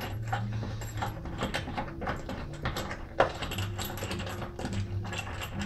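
Small metallic clicks and light rattling as a washing machine's transport bolt and its spacer are turned and worked out of the back panel by hand, with one sharper click about three seconds in.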